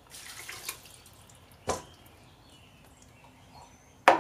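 Chicken broth poured from a glass measuring cup into a slow cooker, a short splashing pour lasting under a second. Two sharp knocks follow, a faint one a couple of seconds in and a louder one near the end.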